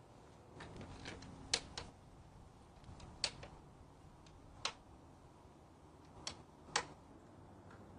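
Hands refitting the air intake duct and vacuum hose in a car's engine bay: about six sharp plastic clicks and taps, a second or so apart, over a soft rustle near the start.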